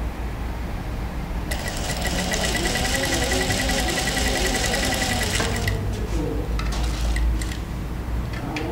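Industrial straight-stitch sewing machine running a seam at a steady, rapid stitch rate for about four seconds, starting a second and a half in and then stopping. A low hum and a few light clicks of fabric handling follow.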